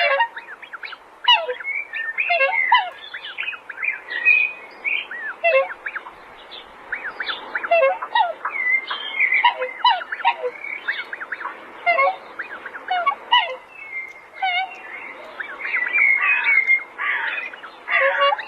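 A flock of farmyard birds calling over one another: many short overlapping calls, some higher and chirping, some lower and falling in pitch.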